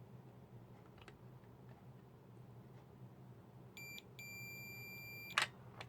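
Multimeter continuity beeper sounding across a MOSFET's pins: a short beep, then a longer steady beep of about a second, ended by a click of the probes. The beep shows a dead short in the transistor.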